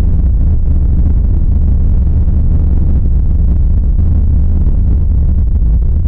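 Loud, steady, deep rumbling drone with no breaks or changes: a dark ambient horror sound effect.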